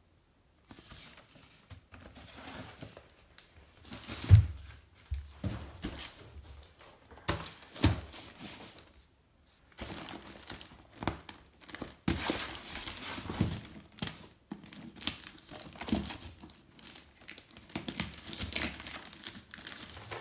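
Plastic postal mailer bag crinkling and rustling as it is handled and torn open, with irregular bursts and a single dull thump about four seconds in.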